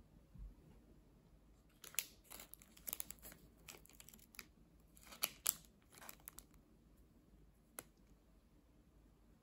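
Clear plastic wrapper crinkling and crackling as it is handled and taken off a daifuku. Its irregular sharp crackles come from about two seconds in until about six and a half seconds, with one last click near the end.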